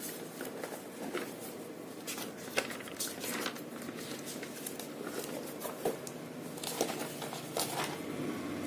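Faint paper rustling and scattered small clicks and taps from a spiral notebook being handled and slid away, with more taps near the end.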